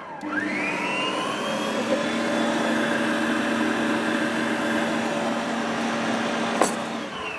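Electric stand mixer motor spinning up with a rising whine, then running steadily. Near the end there is a click as it is switched off, and the motor winds down with a falling whine.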